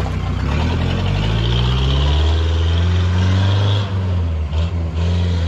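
A vehicle engine revs up, its pitch rising over the first couple of seconds, then runs steadily at the higher speed, with a few brief dips near the end.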